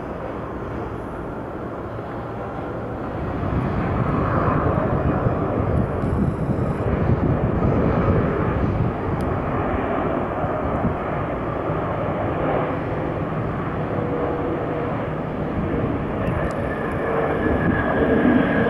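Jet engines of a Boeing 787-8 airliner landing, a steady rushing engine noise that grows louder about four seconds in and stays loud through touchdown and rollout, with a faint steady whine near the end.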